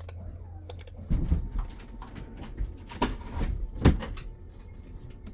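RV slide-out room retracting: the slide mechanism runs with a steady low hum while the room knocks and bounces a few times, the loudest knocks about three and four seconds in. The bouncing comes from the newly fitted aluminium shoe under the slide floor, which is too short to reach the back roller, so the room pops up onto the roller.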